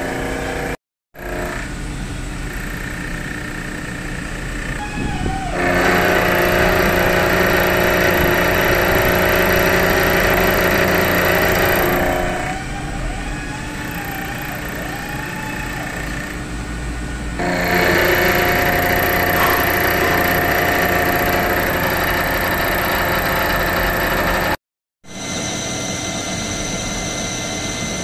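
Vertical milling machine running with its end mill cutting a steel workpiece held in a vise: a steady spindle and motor hum, with two long louder stretches of cutting noise. After a brief cut near the end, a lathe turns a steel bar.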